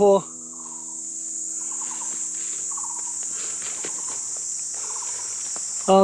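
Steady, high-pitched chorus of forest insects, with a few faint short lower calls and light scattered ticks over it.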